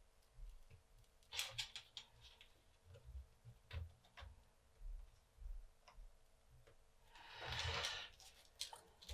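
Faint, sparse clicks and small handling noises of hand soldering on a circuit board: the soldering iron tip and solder wire touching the connector lugs. About seven seconds in there is a louder rustle lasting about a second as the board is picked up.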